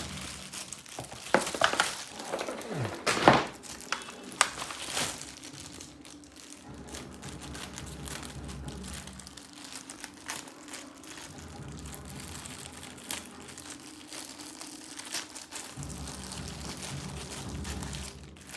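Plastic and paper packaging crinkling and rustling as a new keyboard is unwrapped, with sharp irregular crackles, loudest in the first few seconds.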